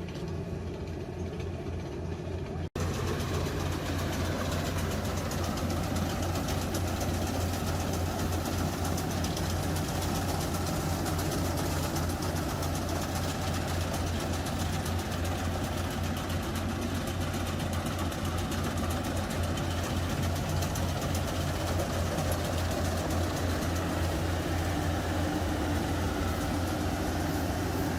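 Engine of a rice-harvesting machine running steadily with a fast, even beat. It gets louder after an abrupt cut about three seconds in.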